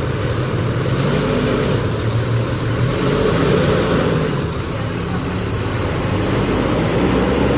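Road traffic, with several vehicle engines running at a steady, fairly loud level.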